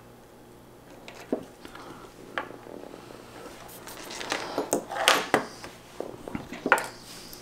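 Small clicks and clatters of tools and parts being set down and handled on a wooden tabletop, a few sharp knocks at first and then a busier run of them near the end.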